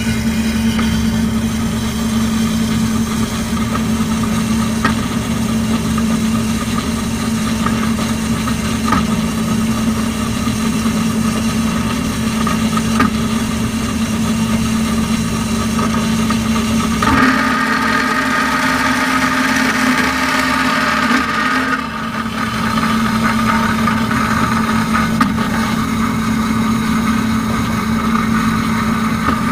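DoALL vertical bandsaw running, its fine-toothed blade cutting through thin-wall steel tubing: a steady motor hum under the rasp of the blade in the cut. For about five seconds past the middle the rasp grows harsher and higher.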